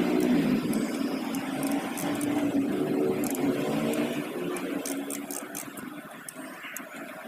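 Ratchet wrench clicking in short runs as bolts are worked loose through the front wheel hub flange, over a steady low mechanical hum that fades after about four seconds.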